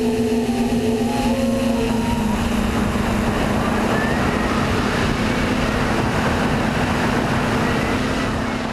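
Brushless motors and 8x4.5 propellers of a TITAN tricopter in flight, a steady, even-pitched drone over a hiss of air, recorded by the onboard GoPro. The sound begins to fade near the end.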